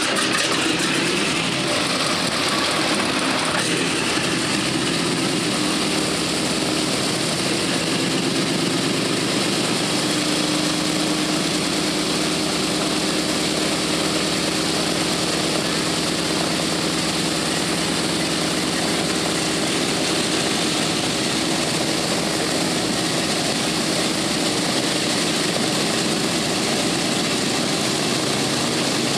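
A B-17's Wright R-1820 Cyclone nine-cylinder radial engines idling on the ground with propellers turning, a steady, even rumble.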